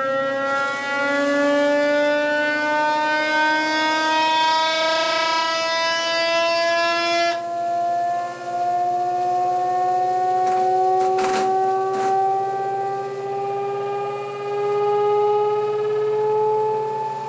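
ReGenX generator prototype and its electric drive motor spinning, with a whine that rises steadily in pitch as the machine speeds up. There are a couple of brief clicks about eleven to twelve seconds in.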